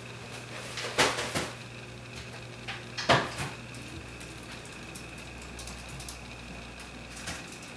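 Kitchen cupboard and refrigerator doors being opened and shut: two sharp knocks about two seconds apart, with softer clatter and clicks around them.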